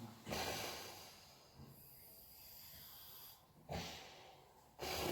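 A man snoring in his sleep: three snores, each starting abruptly and fading over about a second, with a hissing breath between the first and second.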